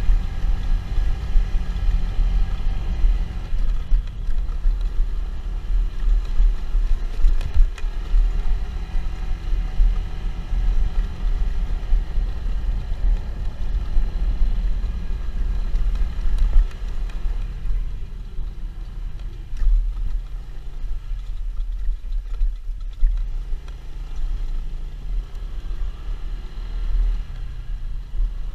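Motorcycle running while being ridden, a steady heavy low rumble. The low engine note shifts up and down in pitch in the second half.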